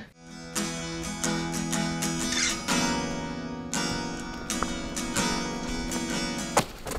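Soundtrack music of strummed acoustic guitar chords, struck again and again, cutting off sharply near the end.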